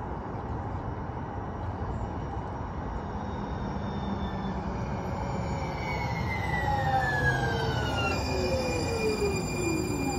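San Diego Trolley Siemens S70 light rail car arriving at the platform and braking, its rumble growing louder. From about six seconds in, a whine with several tones glides steadily down in pitch as the train slows.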